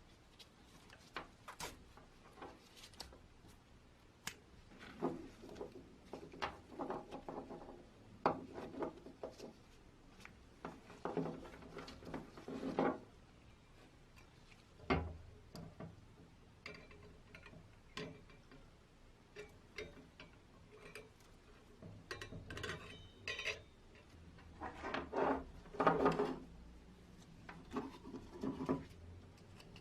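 Hand work on metal parts: irregular clinks, taps and knocks, with several short stretches of scraping or rubbing.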